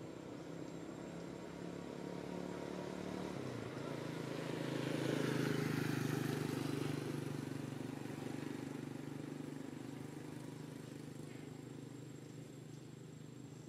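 A motor vehicle passing by: a steady engine hum with tyre hiss that grows louder, peaks about five or six seconds in, and fades away.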